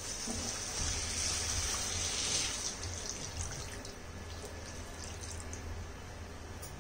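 A glass of water poured into a kadhai of fried potatoes and masala, splashing for about two and a half seconds, then fading to faint scattered crackles as the water settles in the pan.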